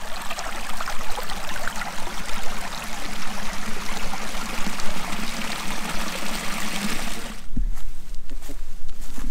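Small woodland brook trickling and splashing over rocks, a steady rush that cuts off about three-quarters of the way in, where a low thump follows.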